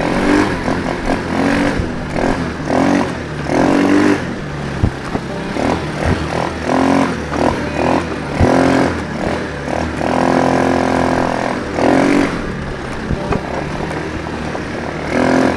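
ATV engine running steadily as the quad is ridden over a rough, muddy field track, with a few knocks from the bumps. A voice calls out now and then over the engine, once holding a long note near the middle.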